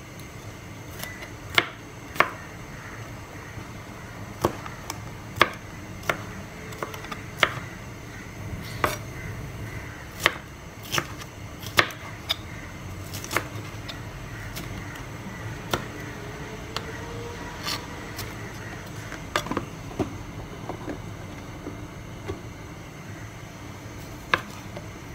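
Chef's knife chopping bell pepper on a plastic cutting board: irregular sharp knocks of the blade striking the board, roughly one a second, with short pauses between runs of cuts.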